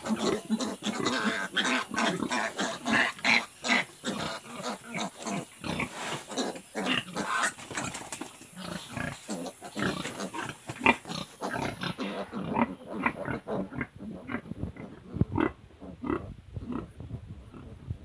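Pigs, a sow and her young piglets, making many short rapid calls, several a second, which thin out after about twelve seconds.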